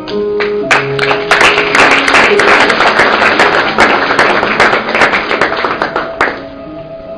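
Audience applauding, starting just under a second in and stopping about six seconds in, over soft instrumental background music with held notes.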